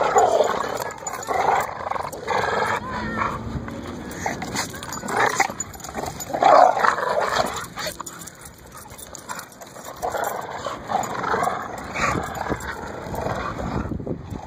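Two pit bull-type dogs making short vocal noises in bursts every second or few seconds while playing tug-of-war over a stick.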